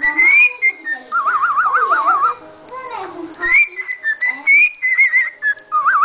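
Cockatiel whistling its song: short rising whistled notes, then a fast warbling trill, more short whistled phrases, and another trill near the end.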